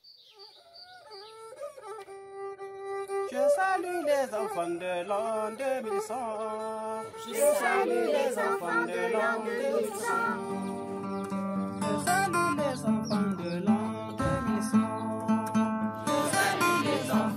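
A man sings a wavering solo melody over a godjé, a one-string gourd fiddle, entering softly about a second in. More instruments join from about three seconds on, including strummed acoustic guitar, building to full music.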